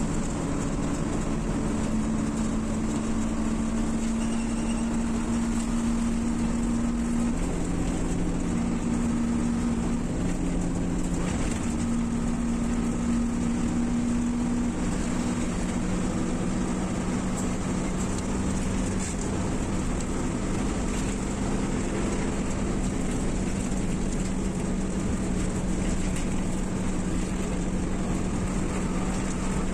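Coach engine and road noise heard from inside the moving bus: a steady drone with a low hum whose pitch changes a few times as the engine speed changes.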